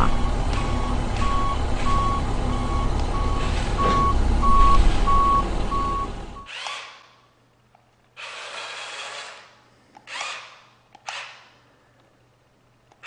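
Heavy truck engine running with a reversing alarm beeping at a steady rate, both cutting off suddenly about six and a half seconds in. Then come three short, quieter bursts of hissing noise, the first about a second long.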